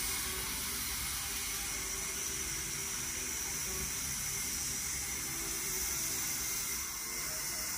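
Steady hiss with a faint, constant high whine, even throughout with no distinct events.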